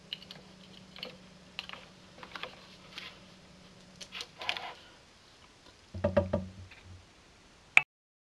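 Irregular clicks and taps over a faint steady hum that stops about halfway through. A louder burst of knocks comes about six seconds in, then a sharp click, after which the sound cuts off completely.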